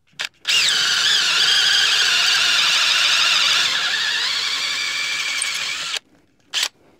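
Hand drill spinning up and boring a dowel hole through a doweling jig's guide into a wooden 2x2 block. It gives a high, steady whine for about five and a half seconds and cuts off suddenly.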